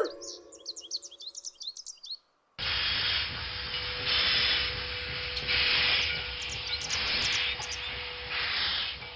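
Birds chirping, then after a short break a steam locomotive hissing, the steam swelling and easing in slow surges about every second and a half, with a faint steady tone underneath and a few bird chirps above.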